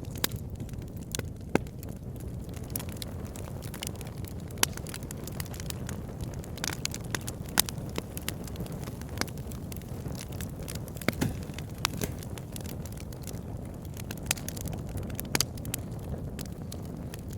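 Fire burning in a fireplace: a steady low rumble with sharp, irregular crackles and pops scattered throughout.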